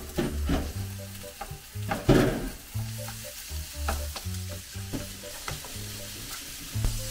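Minced pork with chopped chilies and garlic sizzling in a hot nonstick frying pan as it is stir-fried for pad kaphrao. A plastic spatula scrapes and taps the pan again and again, loudest about two seconds in. Light background music plays underneath.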